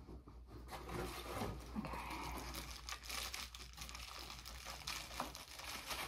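Packaging wrap crinkling and rustling as it is handled and pulled off, with small crackles throughout.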